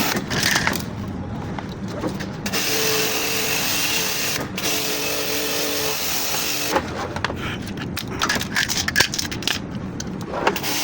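A small motor running with a steady hiss. It cuts out briefly near the start, runs again for about four seconds, then stops and starts in short spells with clicks and knocks in between.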